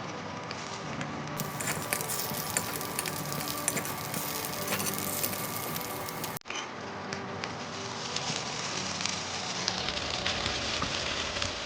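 Sooji appe batter sizzling in ghee in an appe pan: a steady frying hiss with many small crackles and pops. It drops out briefly about six seconds in.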